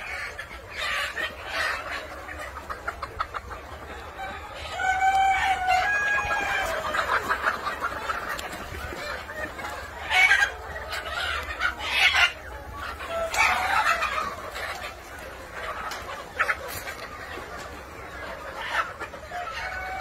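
A large flock of black Kadaknath chickens clucking continuously, with a rooster crowing about five seconds in and more loud calls around ten to fourteen seconds in.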